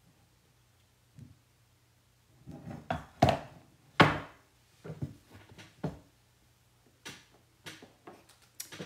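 Irregular knocks and clacks of small hard objects being handled and set down on a tabletop, the loudest about four seconds in.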